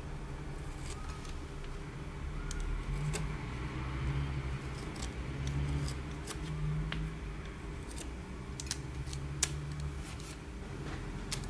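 Coloured pencil scratching on grainy paper as it traces around a glass cabochon, with light scattered clicks and a sharper tap near the end. A steady low hum runs underneath.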